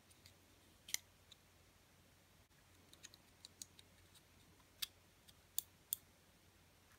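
Sharp little clicks and ticks of small plastic parts being handled: a memory card reader, then the plastic body of a mini quadcopter. One click comes about a second in, a run of lighter ticks follows a couple of seconds later, and three sharper clicks come near the end.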